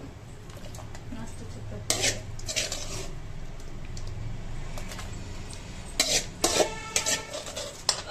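Metal spoon scraping and clinking against an aluminium pan and a steel mixer-grinder jar as sautéed onions, tomatoes and dried red chillies are spooned into the jar. A few sharp clinks come about two seconds in, and a quicker run of clinks and scrapes comes near the end.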